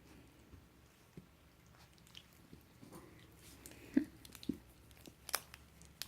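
Puppies chewing and play-biting, with scattered small clicks and soft knocks; the loudest knocks come about four, four and a half and five and a half seconds in.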